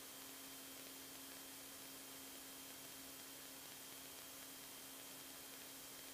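Near silence: a faint, steady electrical hiss with a low hum and a thin high whine.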